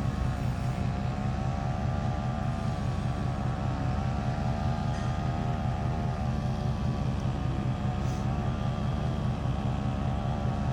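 Weed eater motor mounted on a kayak running steadily, driving the boat at a near-constant speed with only slight drifts in pitch.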